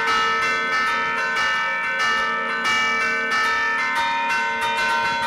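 Church bells played by hand from a baton keyboard, the levers pulling chains to the clappers: a quick melody of struck bell notes, about three strokes a second, each ringing on under the next.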